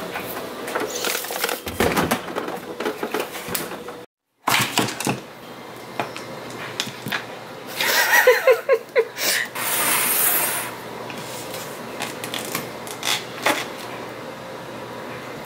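Kitchen handling sounds: clicks and knocks as things are moved about in a refrigerator freezer, then a metal ice cream scoop scraping through a carton of ice cream and knocking against bowls, with a stretch of scraping in the middle.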